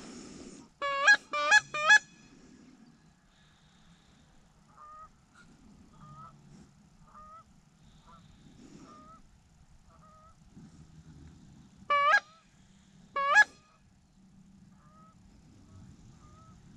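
Goose call blown close by: three quick, loud honks about a second in and two more later on. Fainter honks of distant geese repeat every second or so in between.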